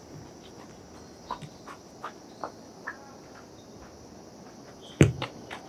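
Football being kicked on an outdoor pitch: a few light knocks, then a hard thump about five seconds in, the loudest sound, followed by smaller knocks. Crickets chirp steadily in the background.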